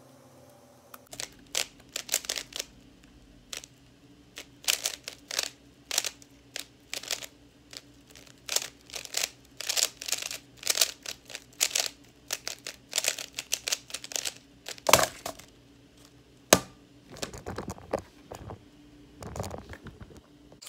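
Stickerless knockoff YuLong 3x3 speed cube being turned fast through a solve: a quick, uneven run of plastic clicks and clacks from the layers turning, with a couple of louder clacks about three-quarters of the way through.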